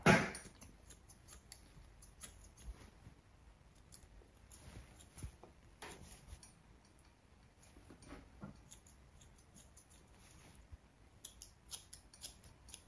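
Grooming scissors snipping the face hair of a small long-coated dog: faint, irregular snips, coming in a quicker run near the end. A louder bump right at the start.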